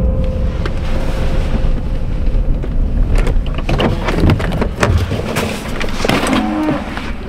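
Pickup truck rolling slowly over a gravel road, heard from inside the cab: a low road rumble, with gravel crackling and popping under the tyres from about three seconds in. A brief tone sounds near the end.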